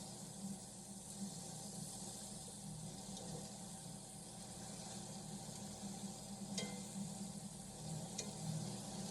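Neck bones sizzling in a frying pan, a steady hiss, with two light clicks in the second half.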